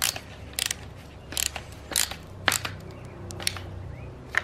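A number 8 wood screw being driven through a finish washer and a tarp grommet into a wooden beam: a run of short, sharp, irregular clicks and creaks.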